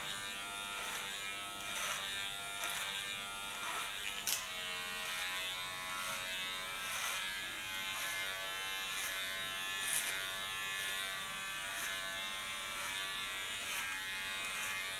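Cordless hair clipper buzzing steadily as it shaves the hair on the side of the head, with a couple of faint clicks along the way.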